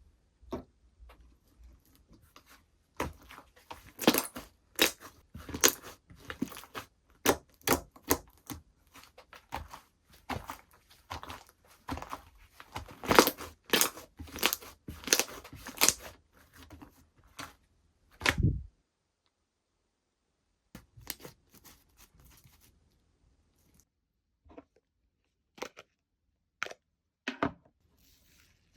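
Slime being squished, pressed and stretched by hand, giving a run of crackly pops and clicks as air pockets burst. The pops are thickest through the middle, then a low thud about two-thirds of the way in, a short pause, and sparser clicks.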